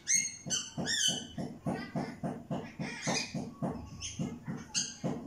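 Pet parrot calling: a few whistled calls that slide up and down, then a quick run of short clucking calls at about five a second, and another whistled call near the end.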